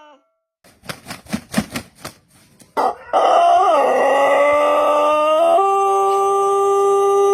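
A quick run of claps, then a Pelung rooster starts a long crow about three seconds in: a rough, wavering opening that settles about halfway through into a loud, long, steady held note.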